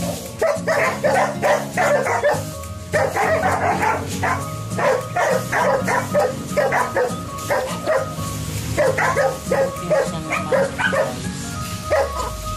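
A dog barking over and over in runs of about two to three barks a second, with background music underneath.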